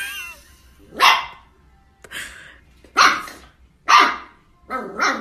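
Small puppy barking at its own reflection in a mirror: five short, sharp barks, about one a second.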